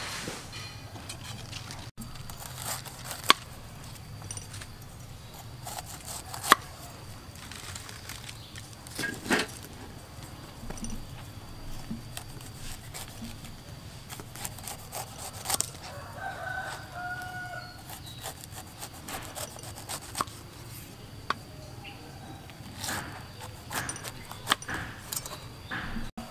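Large kitchen knife cutting the rind off a whole pineapple on a wooden chopping board, in scattered sharp knocks and slicing sounds. A bird calls briefly a little past halfway.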